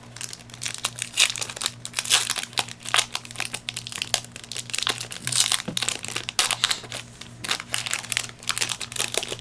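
Foil Yu-Gi-Oh! booster pack wrapper crinkling as it is handled and opened, an irregular run of sharp crackles.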